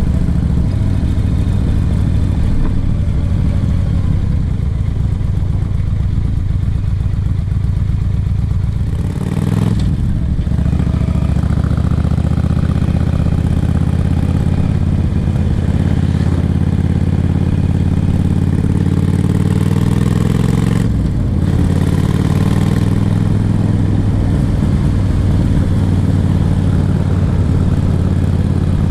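Yamaha XVS1300CU Stryker's V-twin engine running under way, heard from the rider's seat. The engine note dips briefly about ten seconds in and again about twenty-one seconds in, each time picking up and rising in pitch again as the bike pulls.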